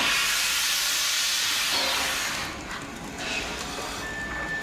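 Steam locomotive's open cylinder drain cocks blowing out steam in a loud hiss, which eases to a quieter hiss after about two and a half seconds.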